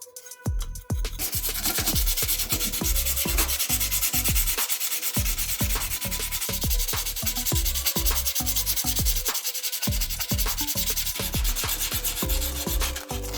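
Sanding: abrasive rubbing on a surface, starting about a second in and going on steadily.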